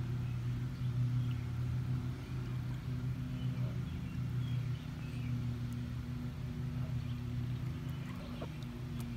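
A steady low mechanical hum, like a motor or engine running without change, with a few faint high chirps above it.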